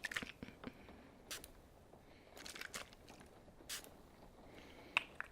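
Close-miked handling of eyeglasses: a few irregular soft taps and short scratchy brushing strokes, the sharpest click about five seconds in.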